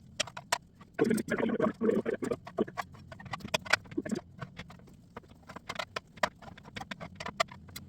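A knife cutting a beef roast into cubes and knocking on a cutting board: a run of sharp, irregular knocks.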